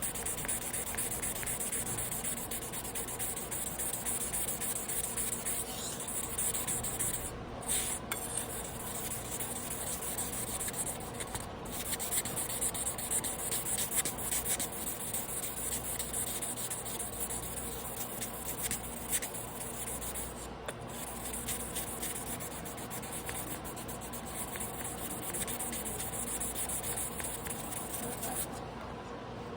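Carbon-steel sashimi knife blade being rubbed back and forth on a wet whetstone by hand, a continuous gritty hiss. It pauses briefly a few times and stops shortly before the end.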